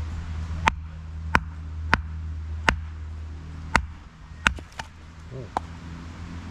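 Eight sharp, short knocks at uneven intervals, about one every half second to second, over a steady low hum.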